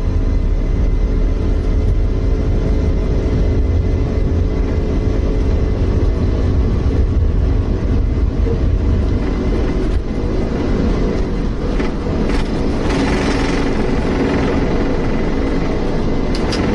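Airliner's jet engines running at takeoff power with a heavy low rumble and a steady hum, the deepest rumble easing about ten seconds in. A brief rattling noise follows a few seconds later.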